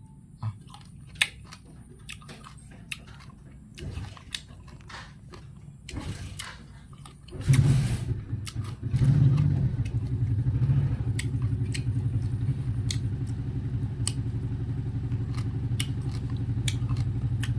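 Biting and chewing a whole lime, peel included, heard as scattered small clicks and crunches. About halfway through an engine starts and then idles steadily, louder than the chewing.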